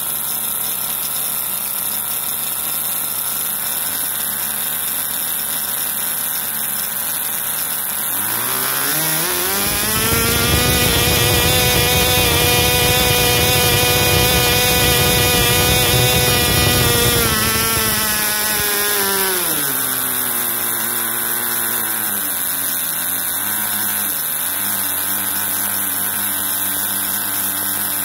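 Small Cox model glow engine turning a two-blade propeller, idling steadily under 5000 rpm. About eight seconds in it is throttled up: its pitch climbs over about two seconds to a steady, louder full-throttle run above 15,000 rpm, holds for about seven seconds, then drops back to a low idle.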